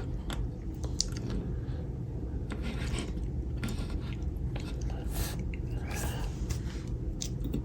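Small scattered clicks and light crackling from diecast model cars being handled and turned over, over a steady low room hum.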